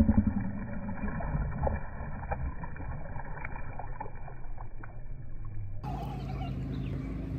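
Hooked bass splashing and thrashing at the water's surface while being played on the line, with scattered sharp splashy clicks over a low rumble.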